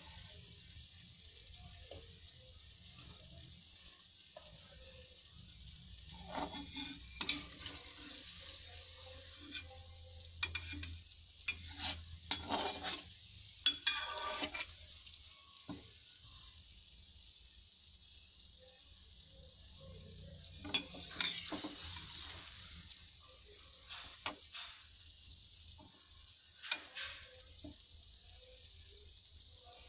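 Dough balls deep-frying in hot oil, a steady sizzle. A perforated metal spoon stirs them several times, scraping and clinking against the pan.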